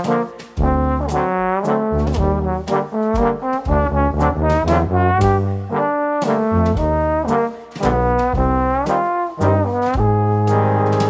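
Background music: a melody over a bass line with a steady beat.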